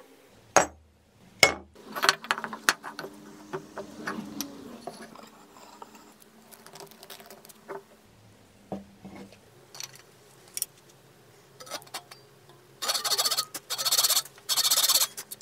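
Workshop tool handling: two sharp knocks in the first two seconds, then scattered light clicks and clatter. Near the end come a few loud bursts of harsh rasping noise.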